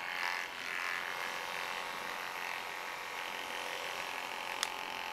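Liveryman electric horse clippers running steadily as the blades shear through a pony's thick winter coat, with one small click near the end.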